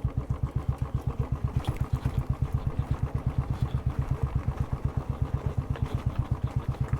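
Motorcycle engine idling with an even, slow thumping beat of about eight beats a second.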